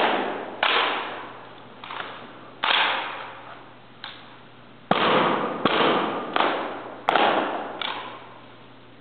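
About ten sharp slaps and knocks from two sailors' rifle drill: hands smacking the rifles and rifle butts striking the floor as they change positions. The strikes come roughly a second apart, a little closer together in the second half, and each rings out in the hall's long echo.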